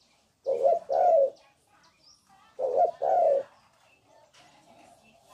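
Spotted dove cooing: two coo phrases, each of two parts, the first about a second in and the second near the middle.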